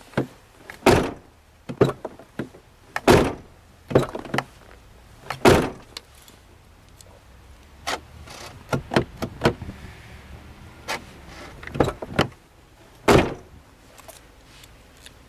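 Truck door being opened and shut several times with its newly installed outside door handle and latch: a series of sharp latch clacks and door shuts, the loudest about a second, three seconds, five and a half seconds and thirteen seconds in, with lighter clicks of the handle in between.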